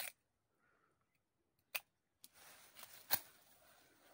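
Sharp clicks, one at the start and one just under two seconds in, then about two seconds of scratchy rustling with a loud snap in the middle: hands working with small bits of wood or a trap part while setting a rat trap.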